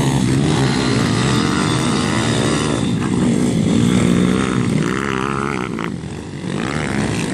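Several pit bikes' small single-cylinder four-stroke engines revving hard and dropping back as they race around a dirt track. The engine notes rise and fall repeatedly, briefly fading about six seconds in before getting louder again.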